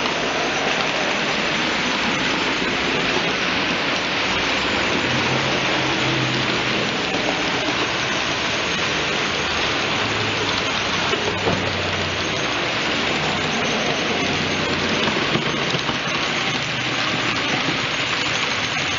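Model freight train running on its track behind a ROCO model of an ÖBB 1044 electric locomotive: a steady rolling rattle of wheels on rails, with a faint low motor hum that comes and goes.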